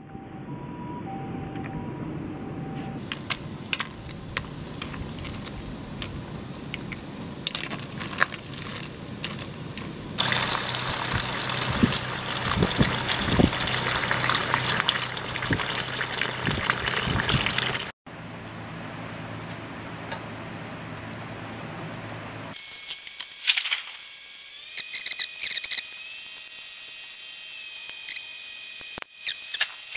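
A steel pot of red swamp crayfish at a rolling boil, bubbling steadily. About ten seconds in, tap water pours hard into the pot for about eight seconds to cool the cooked crayfish. Near the end come scattered clicks of crayfish shells being cracked and peeled by hand.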